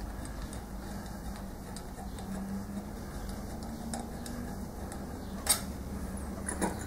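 Small clicks and handling noises from the two halves of a Scott Bonnar model 45 cutter clutch being worked apart by hand. One sharp click comes about five and a half seconds in, and two softer ones near the end.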